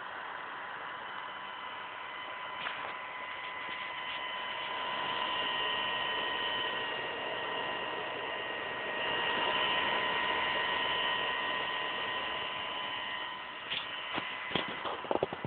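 Alienware M17x laptop cooling fan running with a steady rushing hiss and a high whine, swelling louder twice before settling back. A few sharp clicks near the end.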